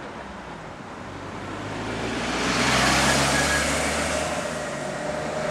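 A vehicle passing by. Its engine and tyre noise build to a peak about three seconds in, then fade, and the sound begins to rise again near the end.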